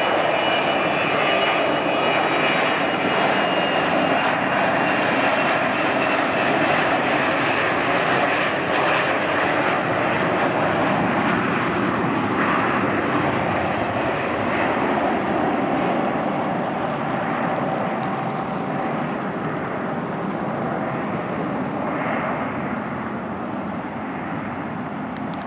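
Twin Rolls-Royce Tay turbofans of a 1988 Gulfstream IV business jet at takeoff power through the takeoff roll, liftoff and climb-out: a steady, dense rush with a high whine in the first seconds, slowly fading over the last several seconds as the jet climbs away.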